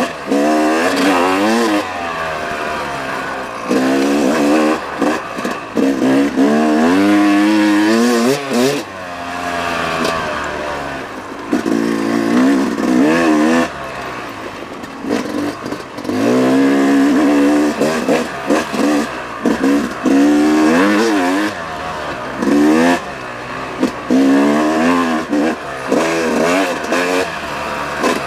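Yamaha YZ250X two-stroke single-cylinder dirt bike engine being ridden hard on a trail, revving up and dropping back again and again with the throttle, a surge every second or two.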